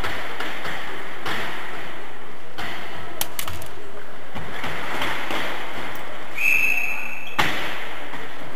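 Echoing sports-hall noise of a cycle-ball match: bicycles, ball knocks and voices, with a few sharp knocks about three seconds in. Near the end a single whistle blast sounds for about a second.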